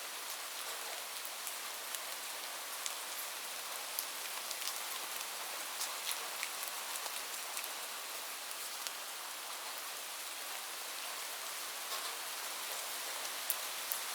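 Light rain falling steadily: an even hiss with scattered sharp ticks of individual drops.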